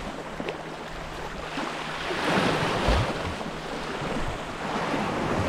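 Sea waves washing against a rocky shoreline, with wind buffeting the microphone; the wash swells louder about two seconds in.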